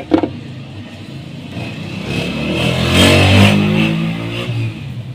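A motor vehicle engine passes by, swelling to a peak about three seconds in and then fading away. Two sharp clicks sound at the very start.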